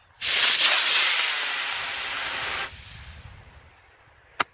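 Estes D12 solid-propellant model rocket motor igniting and burning: a sudden loud hiss at lift-off, strongest for its first second, easing slightly, then cutting off abruptly at burnout after about two and a half seconds. A single sharp crack follows near the end.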